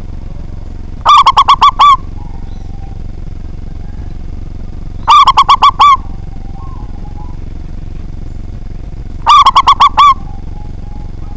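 Zebra dove (perkutut) cooing: three loud calls about four seconds apart, each a quick run of five or six clipped notes, over a steady low background hum.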